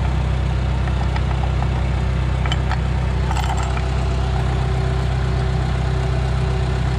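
John Deere crawler dozer's diesel engine idling steadily, with a few light clinks of a steel log chain being handled about two and a half and three and a half seconds in.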